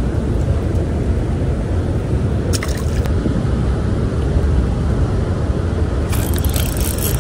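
Steady rush of water pouring over a spillway, with a brief click about two and a half seconds in and a few short crackles near the end.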